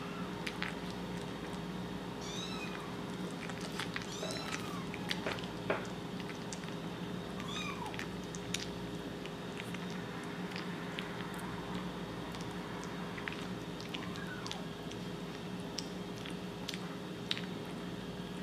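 Kitten eating wet food from a bowl, with scattered small wet clicks of chewing and lapping, and a few short high-pitched mews, mostly in the first half.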